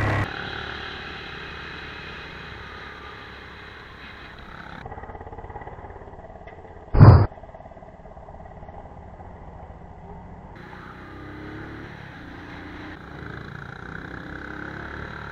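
Motorcycle engine running while riding along a street, a steady drone heard from the bike. About seven seconds in comes one short, very loud burst.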